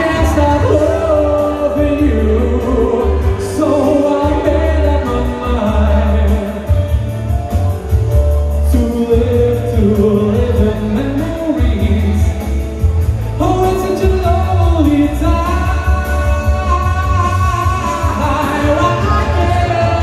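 A singer performing over band music with a heavy bass line.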